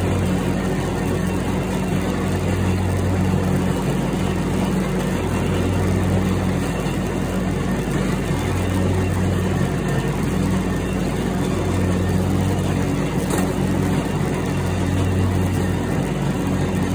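Riding mower engine running steadily while mowing: a loud low drone that swells and fades slightly every few seconds.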